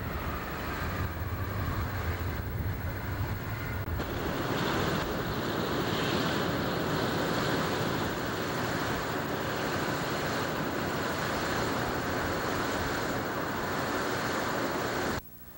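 Jet airliner engines roaring at a distance: a steady rushing noise, with a falling whine in the first couple of seconds and a swell a few seconds in. The sound cuts off abruptly near the end.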